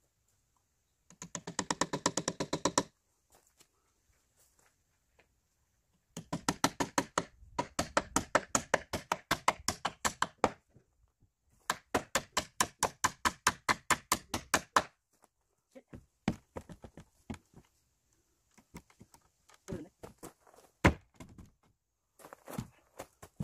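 Hammer driving large nails into the wooden stair frame: three fast runs of sharp strikes, then a few scattered knocks with one loud blow near the end.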